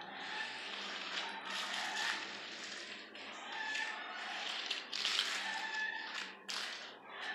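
Hand trowel scraping over a cement floor as it is polished, a rough hiss that swells and fades with each of a series of strokes about a second apart.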